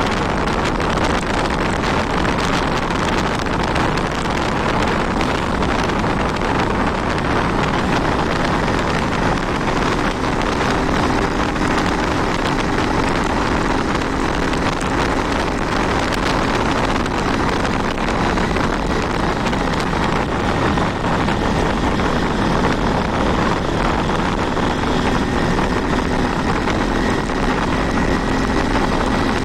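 Wind rushing over the microphone on a moving Honda 160 motorcycle, with the single-cylinder engine running steadily underneath.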